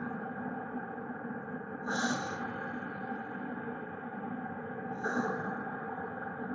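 Diesel heater running with a steady hum, with a short hissing puff about every three seconds.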